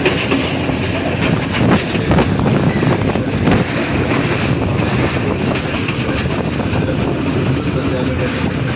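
Train running along the track: a steady heavy rumble with wheels clattering and knocking over the rails.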